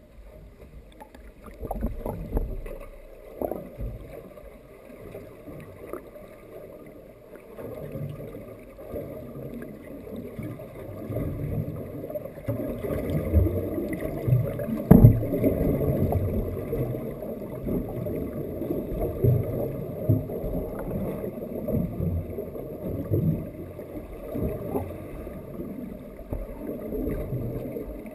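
Muffled underwater noise picked up through a GoPro's waterproof housing: low, churning water sound near the surface, with scattered knocks and one sharp thump about halfway through.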